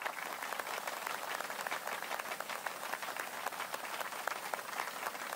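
Applause: many hands clapping at once, a dense, even patter of claps.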